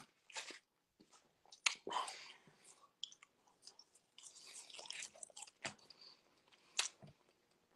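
A person chewing food close to the microphone: irregular wet clicks, smacks and bites from the mouth.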